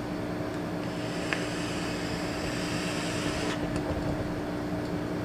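A long draw on a GeekVape Aegis Boost pod mod with a rebuildable RBA coil: a soft airy hiss of the inhale and the firing coil for about two and a half seconds, stopping shortly before the exhale, over a steady low hum.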